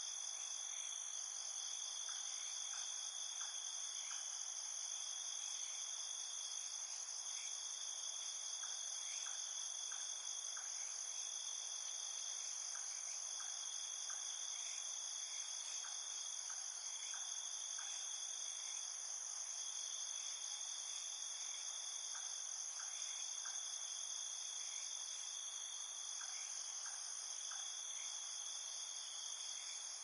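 A dense chorus of crickets trilling steadily: several unbroken high-pitched layers sound together, with faint short chirps scattered here and there beneath them.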